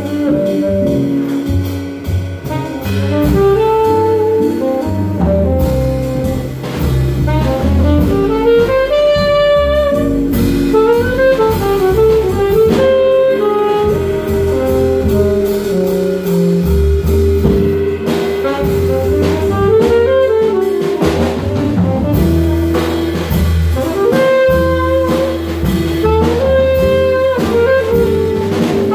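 Small jazz combo playing live: a saxophone plays the lead line over electric guitar, upright bass and drum kit, holding one long note midway.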